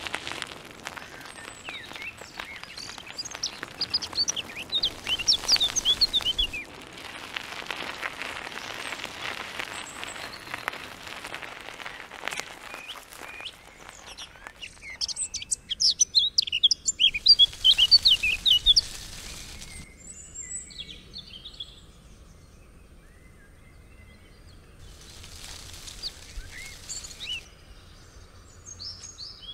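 Songbirds chirping, with two busy flurries of quick calls and sparser calls later, over a noisy hiss that dies away about two-thirds of the way through.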